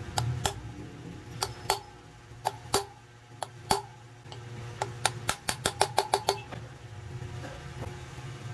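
Hammer striking an open-end wrench used as a drift against the wheel bearing in a motorcycle wheel hub: sharp metal-on-metal strikes with a short ring. They come in pairs at first, then a quick run of about eight blows, then stop.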